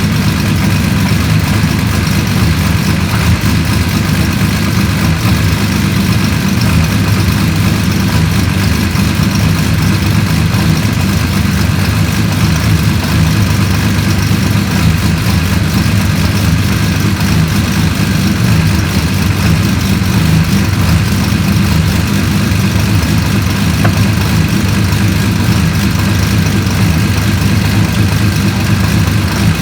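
Turbocharged Ecotec V6 (L67) idling steadily on its first run after an oil change. The engine shows no bad noises.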